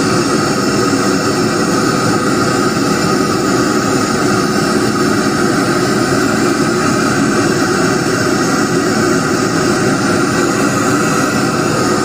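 A steady, loud roar of noise that holds even throughout, with no beat and no changes in pitch.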